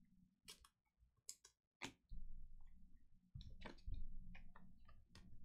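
Trading cards clicking against each other as a stack of baseball cards is thumbed through by hand: a string of light, sharp clicks at irregular intervals over a faint low hum.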